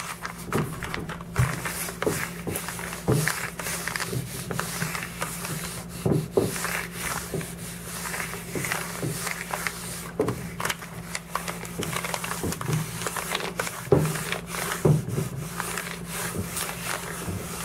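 A clothes iron being pressed and slid over paper laid on a foam sheet: scraping and rustling of paper, with a few sharper knocks as the iron is set down and shifted, over a steady low hum.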